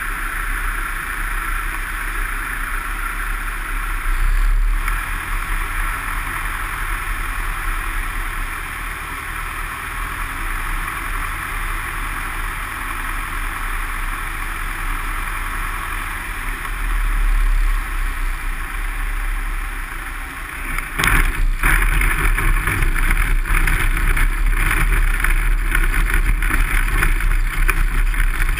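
Light single-engine aircraft's engine and propeller running steadily as heard inside the cockpit, at low power on the approach. About 21 seconds in, the wheels touch down on a grass strip and the sound becomes louder and rougher, with a rattle of bumps as the plane rolls over the uneven ground.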